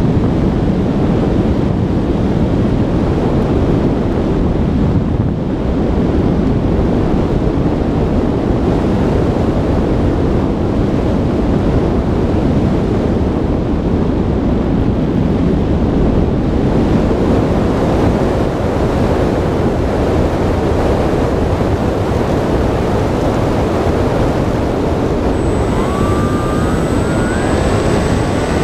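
Wind rush and engine noise on the onboard camera of a large model airplane in flight. A few seconds before the end, a pitched whine comes in and rises as the engine speeds up.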